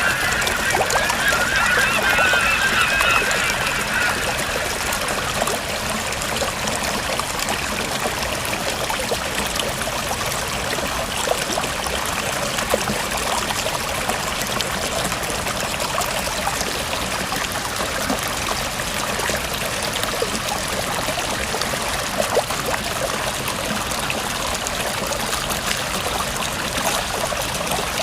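Steady rush of water from a mountain waterfall and stream. A wavering high-pitched sound lies over the water in the first few seconds.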